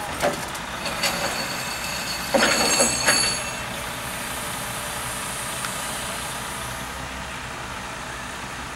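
Truck engine running steadily under a crane's lifting magnet working rusty scrap metal. A few metal clanks come early, then a loud clatter of scrap with ringing metallic tones about two and a half to three and a half seconds in, as the magnet picks up its load. After that only the steady engine is heard.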